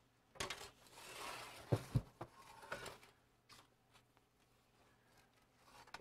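Metal baker's peel scraping and knocking against the wooden bagel boards in an oven as baked bagels are gathered onto it. A rasping scrape comes about half a second in, then two sharp knocks around the two-second mark, followed by scattered light clicks.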